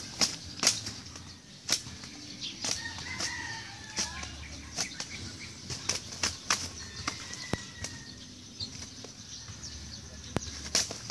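A duck and a rooster fighting: irregular wing flapping, with sharp slaps of wings against each other and against bodies.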